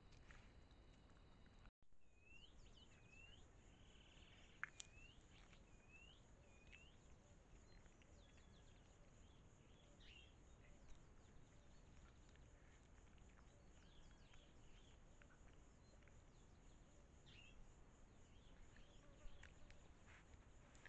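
Faint daytime outdoor ambience through a trail camera's microphone: a bird repeats short hooked chirps for several seconds near the start, then gives scattered chirps, over a steady high insect whine. One sharp tick comes about five seconds in.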